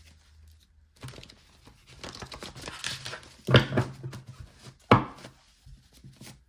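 Paper cards and sheets being handled and shuffled on a desk: rustling and light clicks, with two sharp knocks about three and a half and five seconds in.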